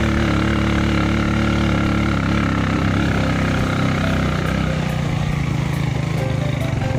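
Motorcycle engine running steadily underway, its note dropping lower about two-thirds of the way through.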